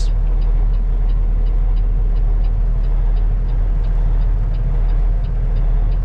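Semi truck's diesel engine running with a steady low drone and road noise, heard from inside the cab while driving. A faint, even ticking about two to three times a second runs underneath.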